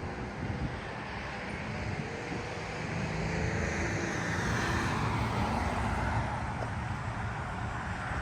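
A car passing by on the street: a steady rush of tyre and engine noise that grows louder about three seconds in and stays up through most of the rest.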